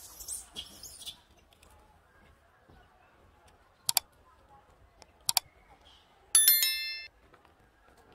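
Like-and-subscribe overlay sound effect: a sharp mouse click about four seconds in, a quick double click a little over a second later, then a bright bell chime of several high tones that rings for under a second and is the loudest sound.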